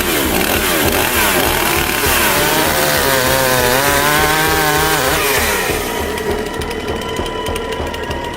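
Chainsaw revving, its pitch swinging up and down several times, then easing to a steadier run about five and a half seconds in.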